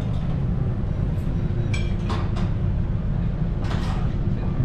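Steady low drone of the ferry's engines, with a faint steady hum over it and a few short clinks of tableware.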